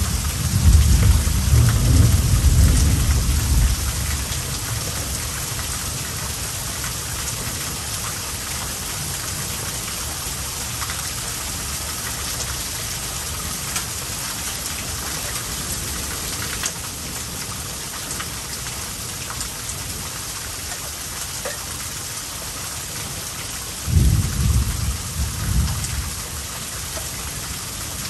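Heavy rain pouring steadily in a thunderstorm. Thunder rumbles loudly through the first few seconds, and a second, shorter rumble comes about 24 seconds in.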